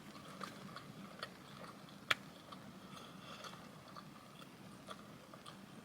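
Faint chewing and wet mouth sounds of someone eating a waffle, with scattered small clicks and one sharp click about two seconds in.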